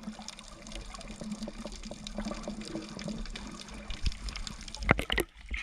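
Water sloshing and gurgling with many small clicks, and a few louder knocks near the end.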